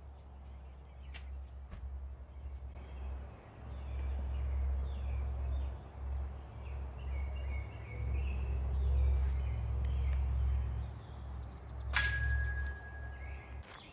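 Outdoor ambience: wind rumbling on the microphone, with small birds chirping. About twelve seconds in, a sharp metallic clink that rings on briefly.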